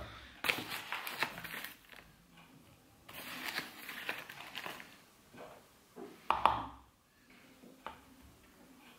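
Rustling and scraping of packaging and a spoon as flour and protein powder are spooned and scooped into a plastic mixing bowl, in two spells, with a soft knock about six seconds in.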